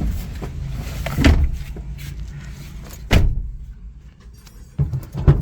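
Car doors thudding shut inside a Honda City, twice about two seconds apart, then a few lighter knocks near the end, over a low steady rumble from the car.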